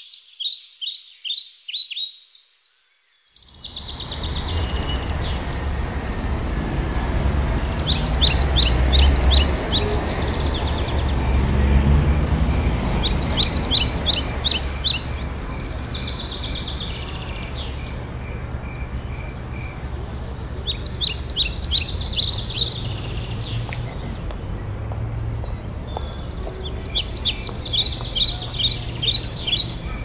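A flock of small songbirds calling: bursts of rapid high chirps every few seconds. A steady low rumble comes in a few seconds in.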